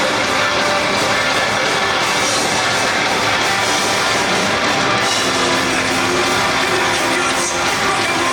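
Loud rock music, playing steadily with no breaks.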